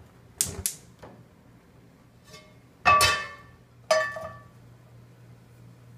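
A ceramic dish clinking against a cast iron skillet as meat is tipped in: two sharp, ringing clinks about three and four seconds in, after a couple of softer knocks near the start.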